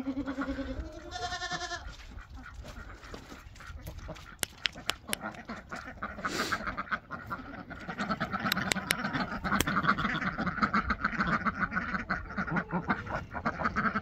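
A flock of domestic ducks quacking and chattering, the calls thickening into a continuous babble over the second half. A couple of short pitched calls come in the first two seconds, and a few sharp ticks midway.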